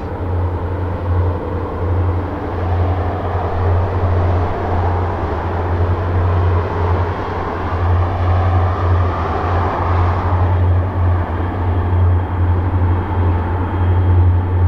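Distant freight train's diesel locomotives giving a steady low rumble, while a car passes on the highway, its tyre and engine noise swelling and then fading about ten seconds in.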